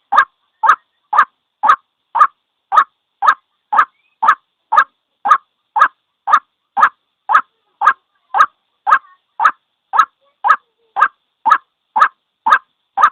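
White-breasted waterhen's single call note, repeated evenly about twice a second.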